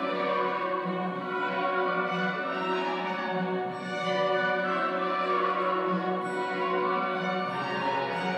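A school orchestra playing a classical piece, with bowed strings holding long notes that change every second or so.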